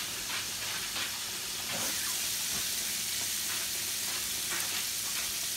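Breaded spot fish frying in hot oil in a stainless sauté pan: a steady sizzle with a few scattered crackles, the fish just turned partway through frying.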